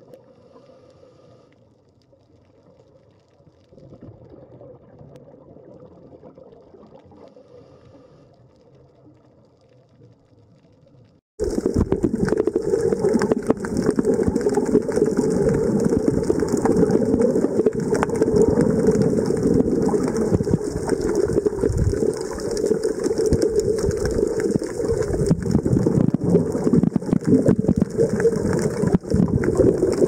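Underwater noise: a faint low murmur that gives way abruptly, about eleven seconds in, to a loud, steady rushing hiss and rumble of water.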